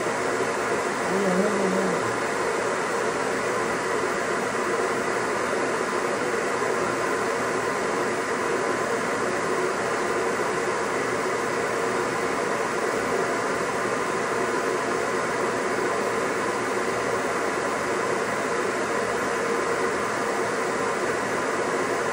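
Shower water spraying steadily, an even rushing hiss that does not change. A brief low hum is heard about a second in.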